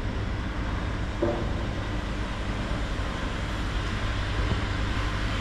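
Steady outdoor city ambience with a low, even engine rumble, typical of traffic or idling engines.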